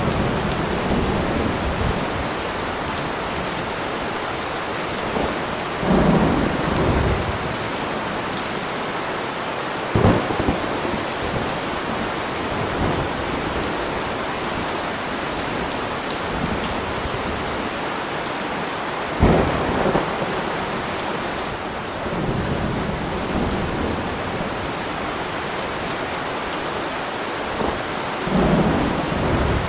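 Heavy rain falling steadily, with thunder breaking in several times. There are rolling rumbles about six seconds in and again near the end, and sharper cracks about ten seconds and nineteen seconds in.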